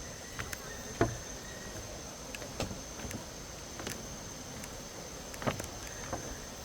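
Steady high-pitched insect drone over outdoor background noise, with scattered short clicks and knocks about every second or so; the loudest knock comes about a second in.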